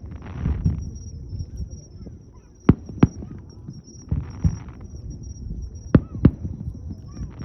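Aerial fireworks shells bursting: low booming thuds, with four sharp bangs in two quick pairs about three seconds apart and two short stretches of hissing crackle.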